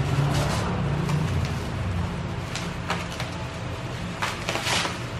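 Clear plastic bag and bubble wrap around an air rifle crinkling and rustling as it is handled in a cardboard box, in several short bursts, over a steady low hum.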